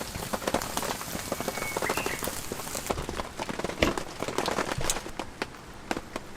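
Heavy rain pattering on an all-cotton tent: a dense, irregular spatter of drops over a steady hiss, with one louder knock a little past halfway.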